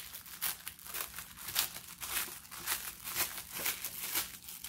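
Clear plastic zip bags of diamond-painting drills crinkling as hands handle them and open them: a quick, uneven run of crackles.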